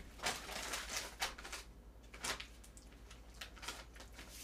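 Soft rustling with a few light clicks, busiest in the first second and a half, then sparser.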